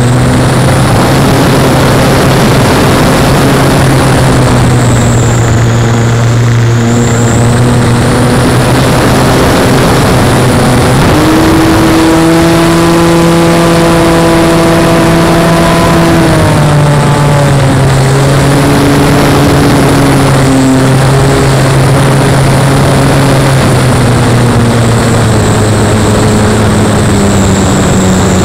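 Webra Speed 55 two-stroke glow engine of a model aerobatic biplane running at high power, with its propeller and wind rush, heard close up from onboard. Its pitch jumps up sharply partway through, falls back a few seconds later and sags slightly near the end.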